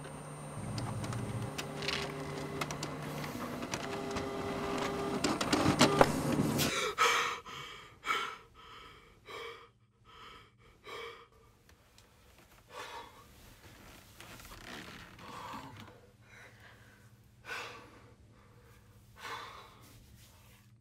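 A swelling drone with steady tones and clicks grows louder and cuts off suddenly about seven seconds in. Then a person breathes in short, heavy gasps, one every second or two.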